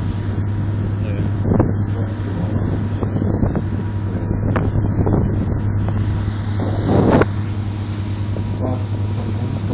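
Steady low hum of a boat's engine, with wind buffeting the microphone and voices in the background. A few short thumps come through, the loudest about seven seconds in.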